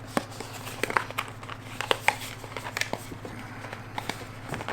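Drone accessories and their plastic and cardboard packaging being handled by hand: scattered light clicks and crinkles, over a steady low hum.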